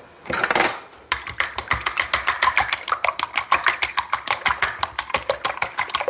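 A fork beating two raw eggs in a small plastic bowl: fast, even clicking of the fork against the bowl, several strokes a second, starting about a second in after a brief scrape.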